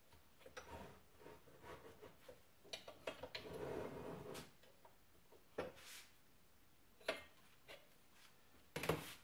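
Metal parts being handled and fitted at a bench vise: scattered light clicks and knocks, with a stretch of rubbing a few seconds in and a quick cluster of knocks near the end.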